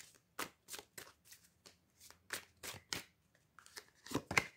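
A deck of tarot cards being shuffled by hand: a string of short, irregular papery flicks and slaps, loudest near the end.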